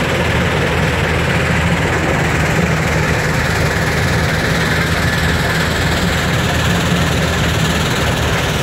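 Heavy diesel engine of a Volvo crawler excavator running steadily at idle, with its hydraulic breaker not striking.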